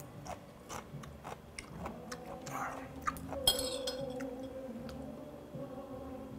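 A man chewing a crunchy piece of yellow pickled radish close to the microphone, with many small mouth clicks. About three and a half seconds in comes a sharp glassy clink, followed by a faint steady tone.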